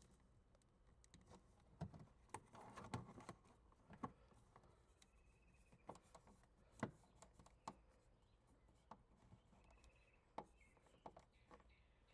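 Near silence broken by faint scattered clicks, taps and a brief rustle: hands handling a dash cam's power cable and mount.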